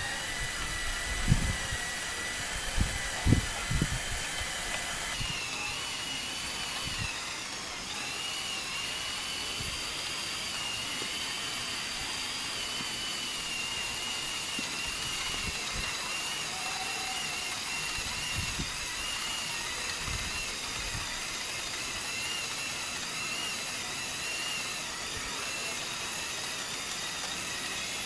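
Small electric motors of a LEGO machine running with a steady high whine through its gears, with a few knocks in the first few seconds.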